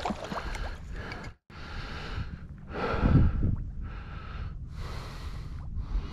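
Wind rushing and buffeting on the microphone over open marsh water, cutting out completely for a moment about a second and a half in.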